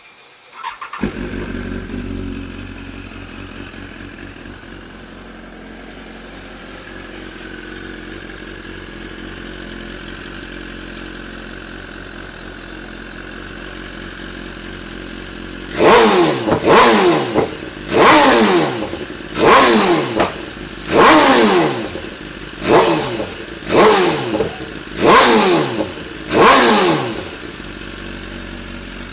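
2018 BMW S1000RR inline-four with an Akrapovič full exhaust system starting up about a second in and idling. About halfway through it is revved in about ten quick throttle blips, each rising sharply and falling back to idle, before it settles to idle again. Loud.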